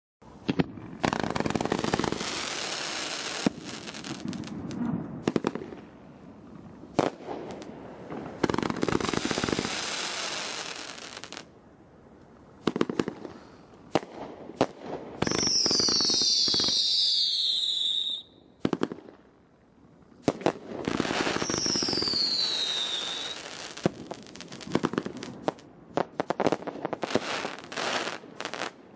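Dominator Sky High (DM558) 500-gram firework cake firing: a string of shots and bursts, with stretches of dense crackling. Two long whistles fall in pitch, one about halfway through and one about two-thirds through.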